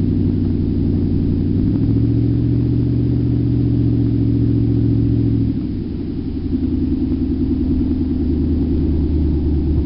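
Nissan Titan's 5.6-litre V8 running with no exhaust fitted, heard from inside the cab while driving: a loud, deep, steady drone that drops in pitch and eases off a little about halfway through.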